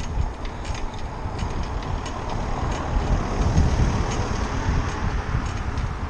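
Wind buffeting a bicycle-mounted camera's microphone, with a car overtaking close by: its tyre and engine noise swells and peaks around three to four seconds in, then fades as it pulls ahead. Faint ticks sound now and then.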